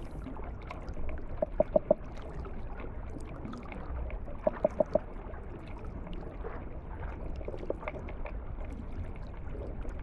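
Brown meagre drumming underwater: short trains of four or five rapid knocks, twice, then a fainter train later, over a low underwater hiss. The drumming is part of the vocal exchanges between these fish.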